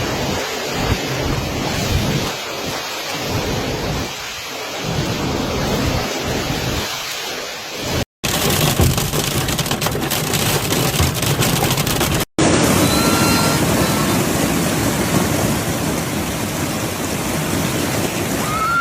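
Heavy rain pouring during a thunderstorm, with thunder rumbling. The sound breaks off for an instant twice where separate clips are joined.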